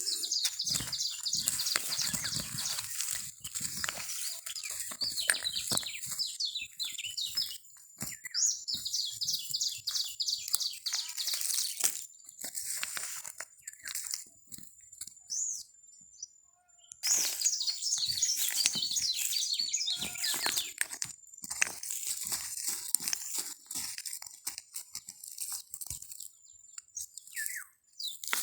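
Repeated crunching and scraping, like soil or sand being dug by hand, with clusters of short high bird chirps and a steady thin high insect tone. The activity pauses briefly about halfway through and again near the end.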